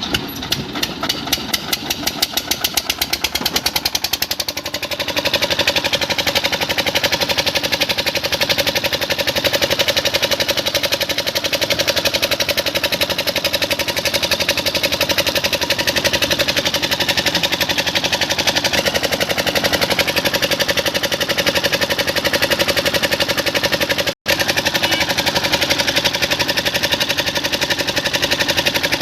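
Crane's diesel engine running with a rapid, even knocking beat. About five seconds in it settles into a steady drone.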